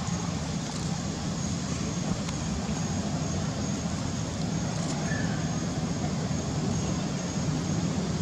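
Steady low rumble of outdoor background noise, with a faint steady high tone above it.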